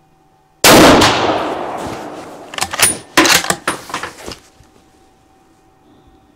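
A single rifle shot from a .270 Winchester Model 70 bolt-action: sudden and very loud, with a long echoing tail under the covered firing line. About two seconds later comes a quick run of sharp metallic clacks as the bolt is worked to eject the spent case and chamber the next round.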